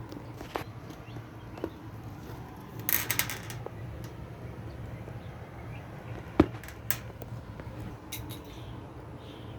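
Metal washing-machine parts and tools clinking and knocking as they are handled during reassembly: scattered clicks, a short jangle about three seconds in and a sharp knock a little past six seconds. A steady low hum runs underneath.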